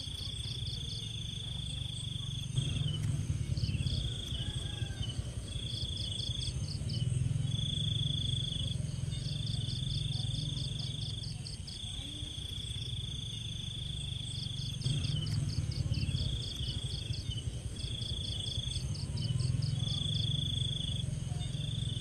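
Crickets chirping in repeated rhythmic trills, alternating fast pulse runs with held high notes about every second, over a steady low rumble.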